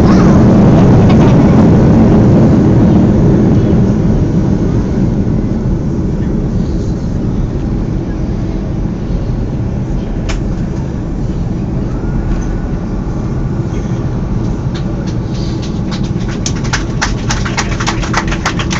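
Airliner cabin noise during landing rollout: a loud, steady rumble of the jet engines and rolling airframe, easing off after about three seconds as the aircraft slows on the runway. Near the end, a flurry of small clicks and rattles joins in.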